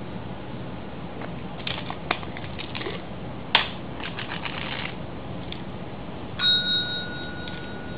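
A service bell rung once by a cat's paw about six seconds in, a single ding that rings on for about a second. Before it come a few sharp clicks and soft rustles as the cat knocks about at the bell.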